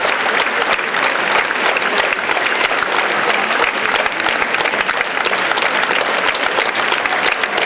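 Theatre audience applauding steadily, a dense sound of many hands clapping.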